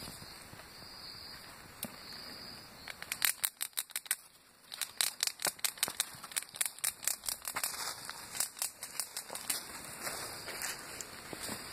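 Dry leaf litter crackling and rustling in quick, irregular clicks, in two spells with a short break between them.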